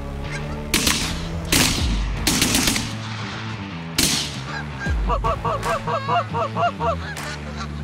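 Canada geese honking, a flock calling in quick repeated honks in the second half, with a few loud, echoing shotgun blasts in the first four seconds, over background music.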